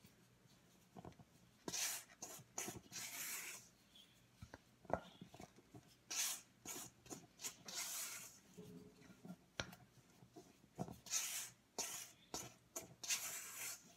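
A spatula stirring and scraping thick, sticky dough around a stainless steel mixing bowl, in irregular scraping strokes with a few sharp knocks against the bowl.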